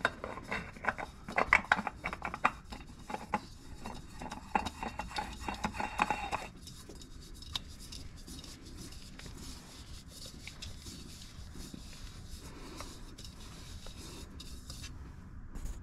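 A spin-on oil filter is screwed by hand onto the oil filter housing, making a run of rubbing, scraping and clicking for about six seconds. After that it goes quieter, with only occasional ticks.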